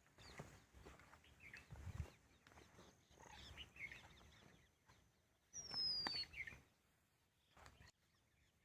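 Faint mixed wild bird calls: scattered short chirps, with one clear falling whistle about six seconds in.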